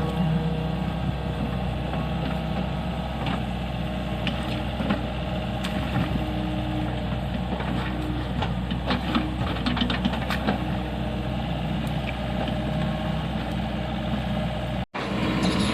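Kobelco SK50P mini excavator's diesel engine running steadily, with scattered short clicks and knocks over it. The sound drops out for a moment near the end.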